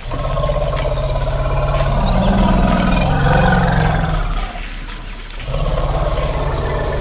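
Elephant rumbling: two long, deep, low-pitched rumbles with a short break just past the middle.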